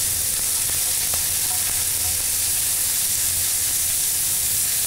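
Pork filet mignon medallions sizzling steadily in hot oil in a frying pan as they are turned over with metal tongs, one side already seared brown.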